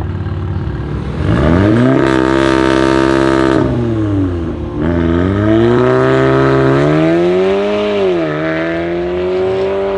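Volkswagen Golf 7 R's turbocharged 2.0-litre four-cylinder, through an Armytrix valved exhaust, revved up and held high while the car stands, then dropping back. It then pulls away under hard acceleration, the revs climbing, with a brief dip at a gearshift about eight seconds in.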